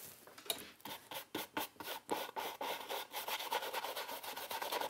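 An old paintbrush scrubbing paint onto textured cotton canvas in quick, repeated rubbing strokes, growing denser and louder about halfway through.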